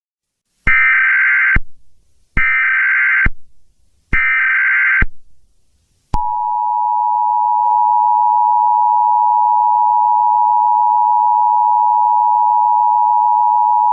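Emergency Alert System header: three short bursts of screechy data tones, each about a second long, then the steady two-tone attention signal, which starts about six seconds in. Together they mark the start of an emergency alert broadcast, here a blizzard warning.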